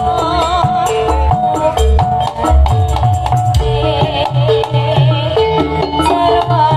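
Live jaranan music amplified through a stage PA: drums beating steadily under a held, wavering melody, with rattling percussion.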